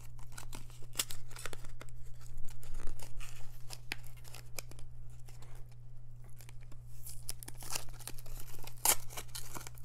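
A small cardboard box being opened by hand: irregular short tearing and scraping sounds as its flap is pried up and ripped, busier near the end.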